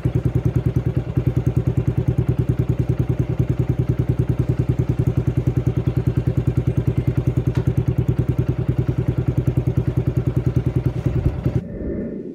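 Yamaha Sniper 135's single-cylinder four-stroke engine idling, an even exhaust putter of about ten beats a second that cuts off near the end.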